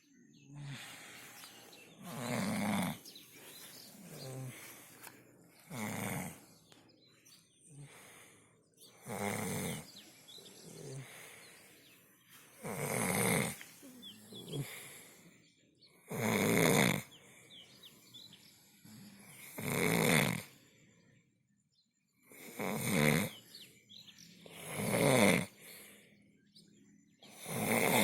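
A sleeper snoring steadily in deep sleep: loud snores come about every three seconds, with quieter breaths between them.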